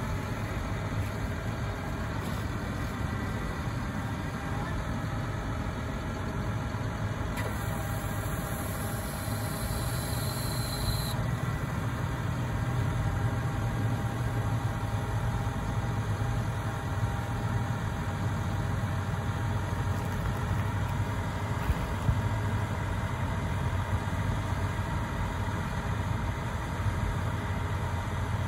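John Deere 6155R tractor's diesel engine running steadily as the tractor pulls a Pöttinger tillage implement slowly across the field.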